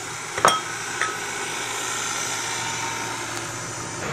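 Plastic cooking-oil bottle set down among ceramic bowls on a table: a sharp knock with a short ringing clink about half a second in, then a lighter tap about a second in, over steady background noise.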